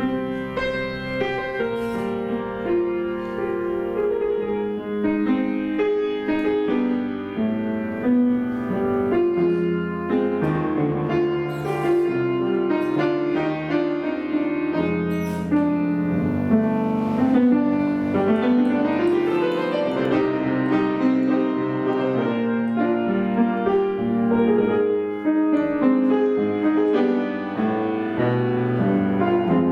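Instrumental music led by piano, with continuous runs of notes and chords.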